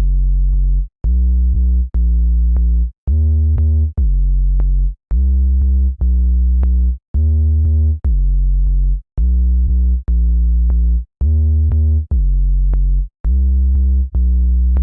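Background electronic music: a deep synthesizer bass note repeated about once a second, each note held almost to the next with a short gap between.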